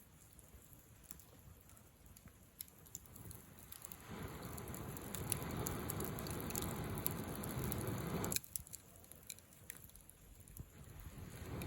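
Wood campfire crackling with scattered sharp pops. A louder steady rushing noise comes in about four seconds in, cuts off suddenly a few seconds later, and builds again near the end.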